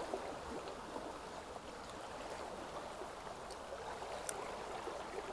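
Shallow stream running steadily, a faint even rush of water, with a single light click about four seconds in.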